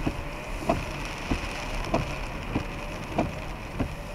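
Car driving on a wet road in heavy rain, heard from inside the car: a steady wash of rain and tyre noise with a short knock about every 0.6 s, evenly spaced.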